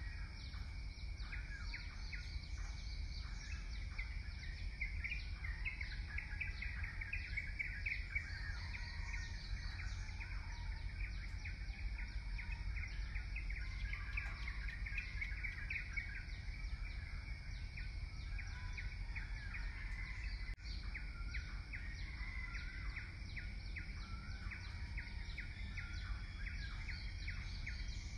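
Birds chirping busily and continuously over a steady low rumble of field ambience.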